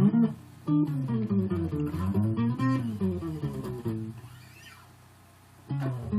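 Bass guitar with two strings an octave apart plucked together and slid up and down the neck, so the paired notes glide up and down in pitch: a sound effect played without a pedal. The strings are plucked again about a second in, die away before the end, and are plucked once more near the end.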